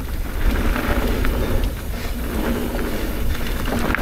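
Wind rushing over the action camera's microphone as a Trek Rail electric mountain bike rolls down a dirt trail, with a steady low rumble and scattered knocks and rattles from the bike over the terrain.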